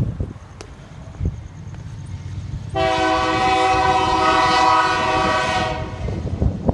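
Locomotive air horn sounding one steady blast of about three seconds, several tones together in a chord, from the approaching train.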